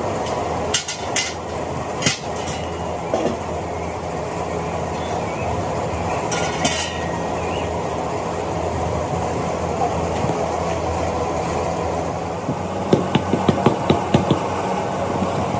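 Steady hum of workshop machinery running, with a few sharp metallic clinks in the first couple of seconds, a short ringing clink past the middle, and a quick run of knocks and clanks near the end.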